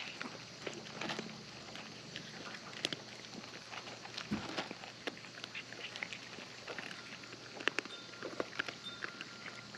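Cats eating from a dish: irregular small clicks and taps of chewing and licking over a faint steady hum.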